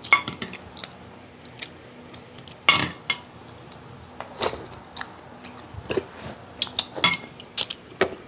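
Spoons and utensils clinking and scraping against bowls and plates, with scattered sharp knocks at irregular intervals and chewing in between.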